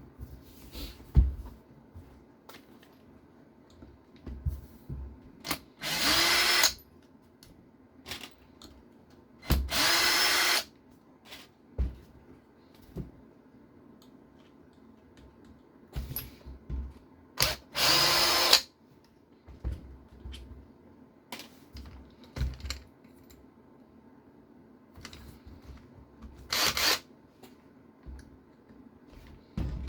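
Electric driver spinning out small screws from an RC car chassis in four short bursts of about a second each, its motor whining up to speed at the start of each run. Small clicks and knocks of parts and screws being handled come in between.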